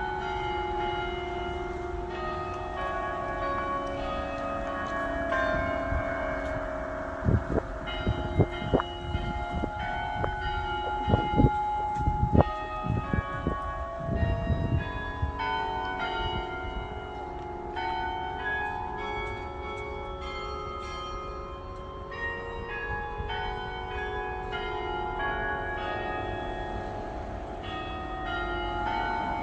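Several church bells of Oscar's Church ringing together, their strokes overlapping and ringing on throughout. A cluster of low thumps comes a quarter to halfway through.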